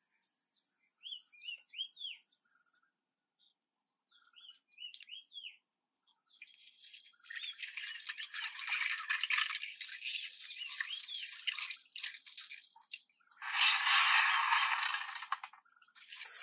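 Birds chirping in short rising-and-falling calls. About six seconds in, water starts trickling from a cement fountain spout onto a bed of pebbles with a steady splashing hiss, which grows louder for a couple of seconds near the end.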